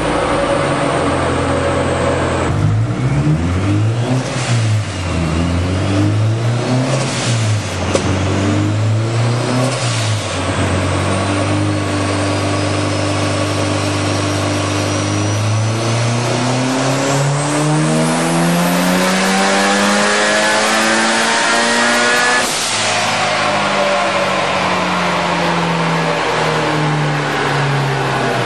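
Turbocharged 2006 Subaru STi flat-four (GT4088R twin-scroll turbo) running on a chassis dyno. The revs are blipped up and down several times, then it makes a full-throttle pull with the engine pitch climbing for about six seconds. The pull cuts off suddenly, and the revs fall away.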